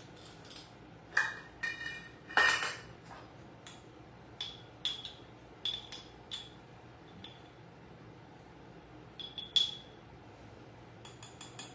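A measuring spoon clinking and tapping against spice containers and the brine jar while teaspoons of turmeric are scooped out. There are a few louder clinks in the first three seconds, lighter ringing taps spread through the middle, and a quick run of small taps near the end.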